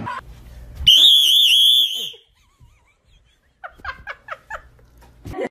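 A person's shrill, wavering high-pitched scream about a second long, then a quick run of about five short cries.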